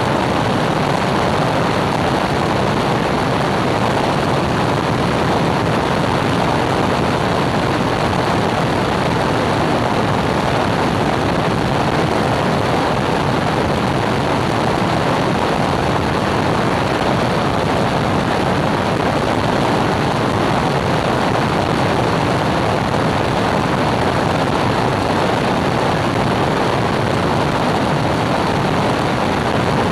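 Small propeller airplane in flight: a loud, steady drone of engine and propeller blended with rushing airflow noise, unchanging throughout.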